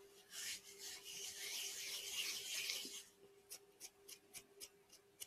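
Hands squeezing and rubbing crushed cookie crumbs mixed with melted butter in a glass bowl for a cheesecake crust: a gritty rustling rub for about three seconds, then a run of short crackly ticks. The mixture still seems a little dry, short of butter.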